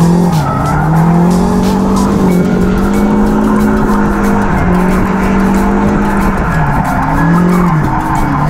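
Nissan 240SX's turbocharged SR20DET four-cylinder held at high revs through a drift, heard from inside the cabin, with tyres squealing on the wet surface. The revs dip and climb back about three times as the driver works the car through the slide.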